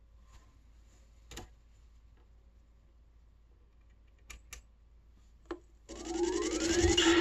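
Several sharp handling clicks from a Victrola suitcase record player's tonearm and controls, then about six seconds in, music starts playing from the record through the player's built-in speakers.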